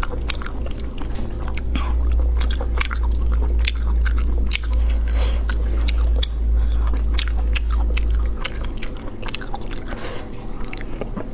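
Close-up eating sounds of spicy snails being picked from their shells by hand and eaten: a quick run of wet lip smacks, sucking and chewing clicks. A steady low hum underlies them and stops about eight seconds in.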